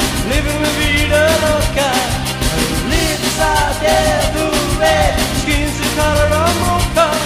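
A man singing an upbeat pop song over a backing track with a steady beat.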